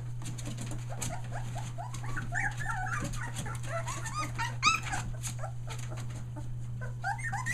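A litter of three-week-old Australian Shepherd puppies whimpering and crying, many short squeaky cries overlapping, with one louder, higher yelp a little past halfway. A steady low hum runs underneath.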